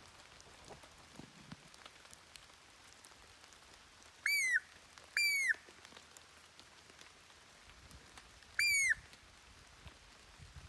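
A hunter's squirrel call blown three times: short, high squeals that each rise and fall, the first two close together and the third a few seconds later.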